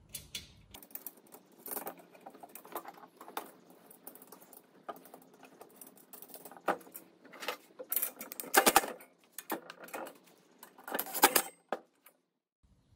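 Galvanized steel profiles and small screw hardware being handled: scattered clicks, light clinks and short metallic rattles as a screw and nut are fitted and turned with a wrench. The rattles are loudest a little past halfway and again near the end.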